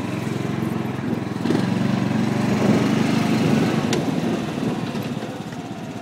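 John Deere bunker rake's small engine running under way, getting louder about a second and a half in and easing off toward the end. A single sharp click about four seconds in.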